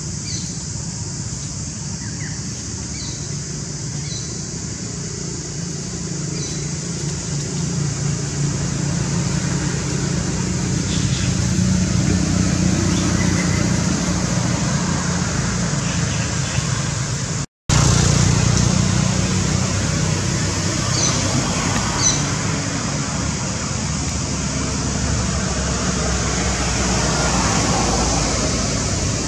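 Steady low rumble of road traffic, with a few faint high chirps; the sound drops out completely for a moment about two-thirds of the way through.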